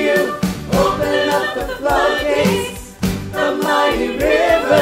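A mixed choir of men's and women's voices singing a worship song in unison and harmony over an electric bass guitar and a steady beat.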